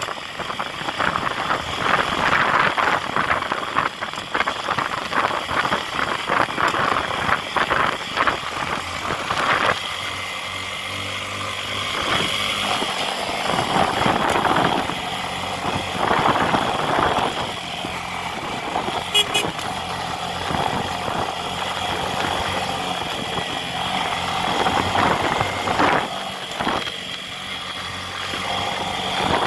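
Motor vehicle engine running in traffic: a rough, noisy stretch for the first ten seconds, then a steady engine hum.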